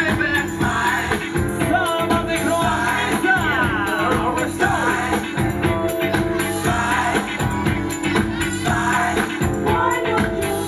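Funk music with singing over a driving beat, played loud for dancers.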